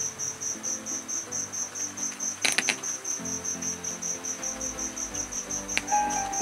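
A cricket chirps steadily, about four pulses a second. About two and a half seconds in, a quick cluster of sharp clicks comes as an audio jack plug is pushed into the MP3 module's aux socket, and there is another single click near the end, just as music starts to play.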